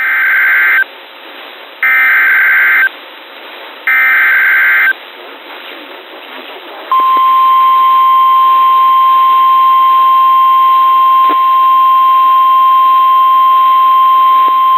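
Emergency Alert System SAME data header: three raspy digital bursts, each about a second long, two seconds apart. After a short gap comes the National Weather Service's steady single-pitch 1050 Hz attention tone, which opens a new weather warning and holds level.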